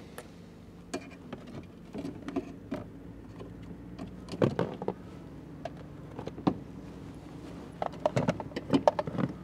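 Hands rummaging through wiring and plastic panels under a pickup truck's dashboard: scattered clicks, rattles and knocks, bunched about four and a half seconds in and again near the end, over a steady low hum.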